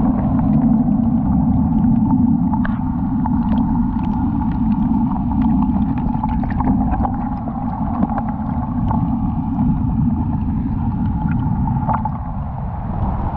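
Wind and rain buffeting the microphone in a steady low rumble, with many light scattered taps and ticks.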